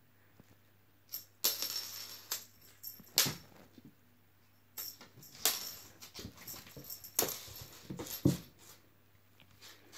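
A Maine Coon cat pouncing on a fishing-pole wand toy across a wooden floor: irregular bursts of rattling and crinkling, with several sharp knocks as the toy and paws hit the floor.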